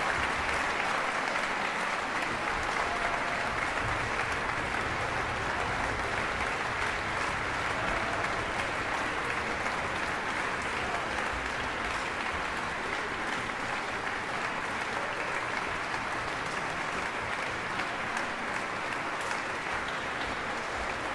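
A large concert-hall audience applauding, steady and sustained with no break.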